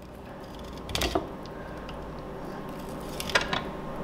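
KastKing fillet knife cutting through a yellow perch on a wooden cutting board: short scraping, crunching strokes as the blade works through scales, skin and bone, in two brief clusters, about one second in and again past three seconds.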